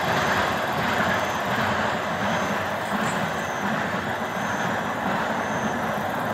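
Freight train of hopper wagons hauled by an EF81 electric locomotive rolling past, a steady rumble of wheels on rail.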